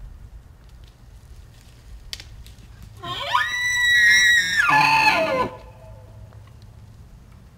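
Bull elk bugling: a single call about three seconds in that slides up into a high, whistling note, holds it for over a second, then drops into lower, rougher grunting tones and stops about two and a half seconds after it began.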